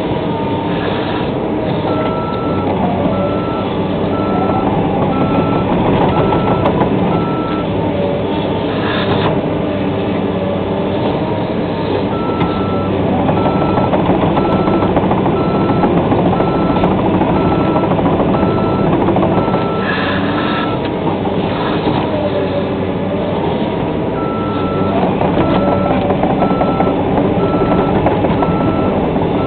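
Heavy-equipment backup/travel alarm beeping in three runs of steady, evenly spaced beeps, over a diesel engine running with its pitch rising and falling several times as the machine works.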